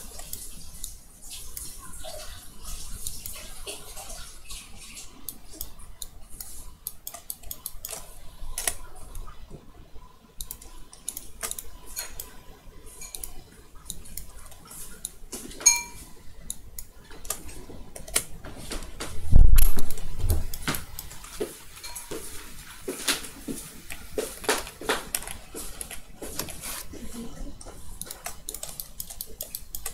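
Computer mouse and keyboard clicks scattered throughout, with a short ringing clink about sixteen seconds in and a low thump a few seconds later.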